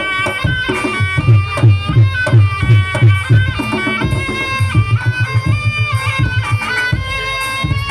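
Live Javanese barongan music: a reedy wind instrument, the slompret, plays a sustained melody that steps between held notes over steady low kendang drum beats.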